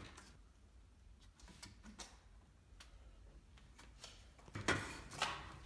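Light scattered taps and clicks from handling and shimming a newly hung steel door in its frame, with two louder knocks near the end.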